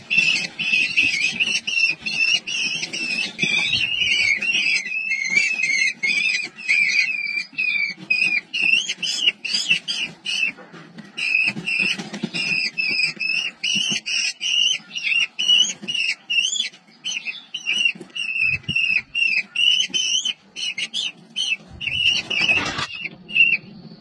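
Falcon nestlings begging with rapid, high-pitched repeated calls, dense at first and more broken up later, while an adult brings food to the nest box. Near the end there is a brief scuffing noise.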